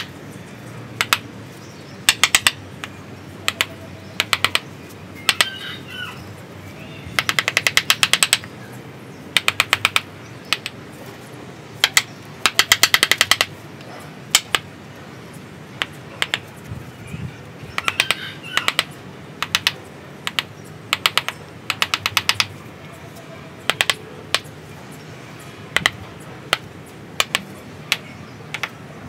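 Wooden mallet striking a chisel into the trunk of a ficus bonsai, carving out the wood: sharp knocks, some single and some in quick runs of about ten a second.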